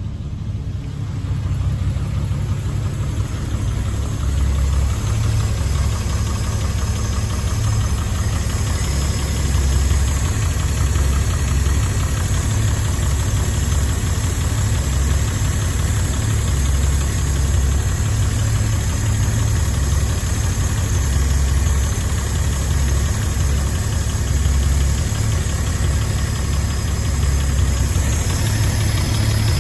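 1967 Triumph Vitesse Mk1 2-litre straight-six idling steadily through its stainless steel exhaust, getting louder over the first few seconds. The engine is freshly rebuilt and running on refurbished twin carburettors that are not yet tuned or balanced.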